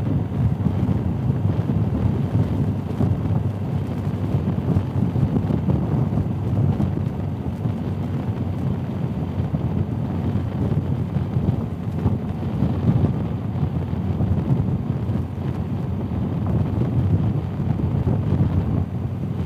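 Wind buffeting the microphone of a helmet camera on a BMW R 1250 GS Adventure motorcycle riding a gravel road: a steady low rumble with no clear engine note.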